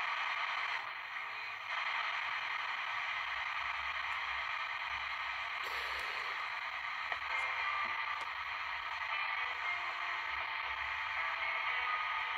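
Sony ICF-2001D communications receiver's loudspeaker giving out AM medium-wave hiss and static as the set is tuned up the band. The noise dips briefly about a second in and shifts in character now and then as the frequency changes.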